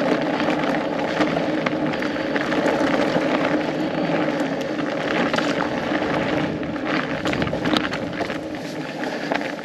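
Fat bike with studded tires rolling over a frozen trail: a steady tire hum with scattered clicks and rattles.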